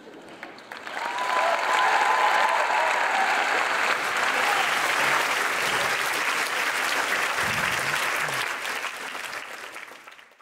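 Audience clapping and cheering at the end of a stand-up set. It builds over the first second, with one long held cry from the crowd near its start, and fades out near the end.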